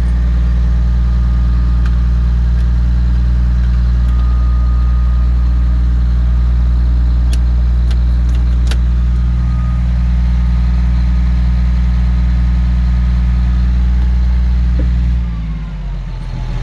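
Komatsu D65EX bulldozer's diesel engine running steadily. About fifteen seconds in, its pitch and level drop as it slows down.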